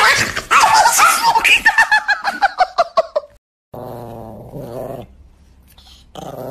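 A chihuahua snarling and yapping rapidly for about three seconds, the yaps falling in pitch. Then, after a brief break, it growls low and steadily in two stretches.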